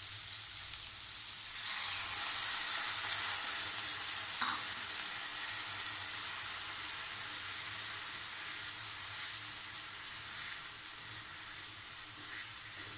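Onion-tomato masala sizzling in hot oil in a frying pan. About a second and a half in the sizzle jumps louder as a cup of water is poured in, then slowly dies down while a wooden spatula stirs the mixture.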